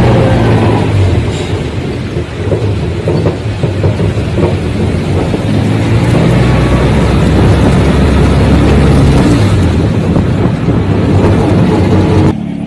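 A moving pickup truck, heard from its open cargo bed: a steady low engine drone with road noise. It eases briefly about two seconds in and cuts off abruptly near the end.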